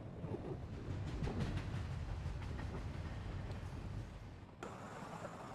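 A low rumbling noise with scattered crackles that cuts off abruptly about four and a half seconds in, giving way to a steadier hiss with a faint high whine.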